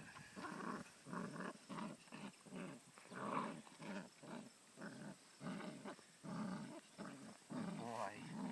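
A male dog vocalizing in a long run of short throaty sounds, about two a second, with brief gaps between them.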